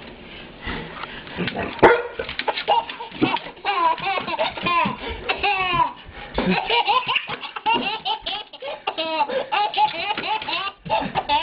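Baby laughing and giggling in repeated bursts, with a single sharp knock about two seconds in.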